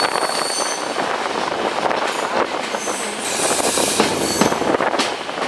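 Passenger train coaches rolling slowly around a sharp curve: a steady wheel-on-rail rumble with clatter over the rail joints. High-pitched wheel squeal sounds at the start and again about three seconds in, from wheels grinding against the rails on the tight curve.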